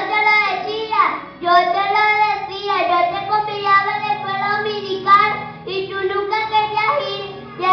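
A child singing a slow song with long held notes, over faint steady low tones.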